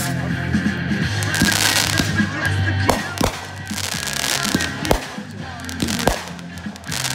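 Fireworks bursting overhead: hissing and crackling sparks, then a run of sharp bangs spaced about a second apart from about three seconds in. Music plays underneath.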